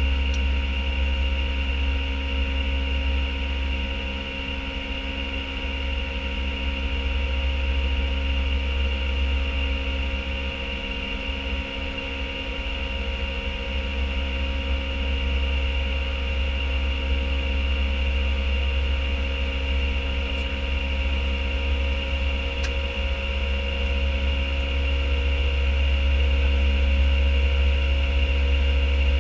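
Steady flight-deck noise of an Airbus A319 climbing after takeoff: a deep rumble of airflow and engines with several steady hums and a higher whine above it.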